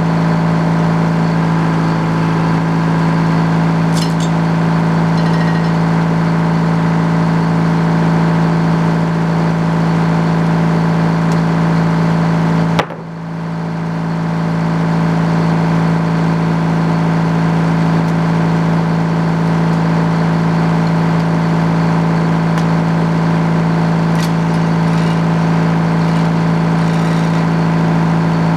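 A sawmill's engine running steadily with a strong low hum. About halfway through there is a click and a sudden brief drop in level, which recovers over the next couple of seconds.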